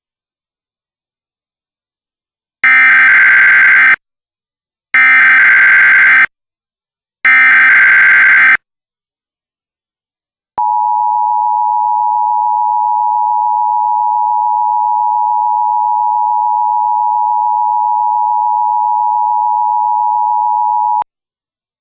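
Emergency Alert System tones: three short bursts of SAME header data, each just over a second long, then the steady two-tone EAS attention signal, held for about ten seconds before it cuts off.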